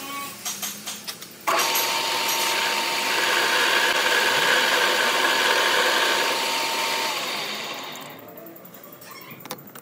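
Metal lathe switched on with a sudden start about a second and a half in, its motor and spindle running with a steady whine while turning a starter-motor armature shaft, then spinning down near the end. A few light metal clicks come before it starts.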